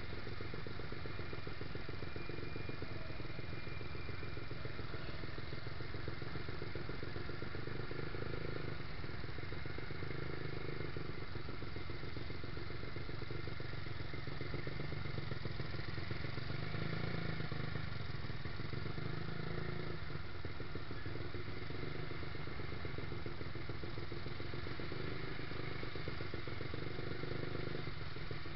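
Yamaha YZF-R125's single-cylinder four-stroke engine running steadily at low revs while the bike crawls in traffic, swelling slightly a few times with small openings of the throttle.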